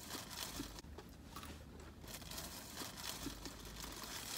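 Faint crinkling and rustling of food wrappers in several short spells, with chewing from people eating.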